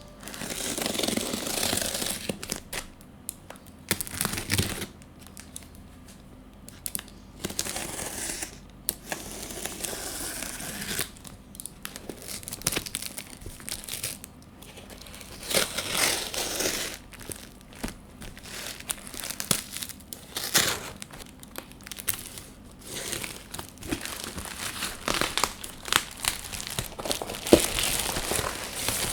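Packaging being unwrapped by hand: plastic crinkling and tearing in irregular bursts, with scattered sharp clicks and handling knocks.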